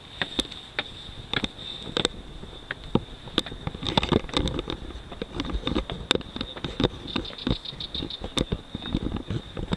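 Handling noise from a handheld camera jostled while its holder climbs stone steps: irregular clicks, knocks and rubbing, busier from about four seconds in, over a faint steady high-pitched whine.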